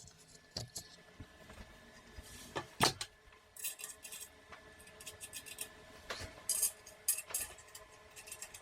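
Small metal clicks and clinks of M4 screws being driven into the frame during assembly, with a few louder knocks and short runs of quick ticking.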